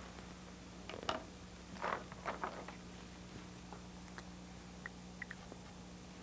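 Quiet room tone with a steady low hum, broken by a few soft clicks and rustles about a second and two seconds in, then a handful of fainter ticks.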